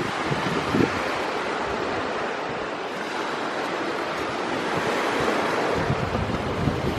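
Sea surf washing steadily, with wind gusting over the microphone; the low rumble of the wind picks up about a second in and again near the end.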